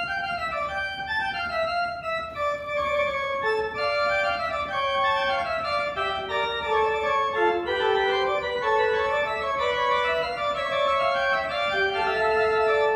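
Buzard pipe organ playing on its principal stops, the flue pipes called the whistles, from the lower manual. Held notes in several parts at once move stepwise down and then climb back up near the end.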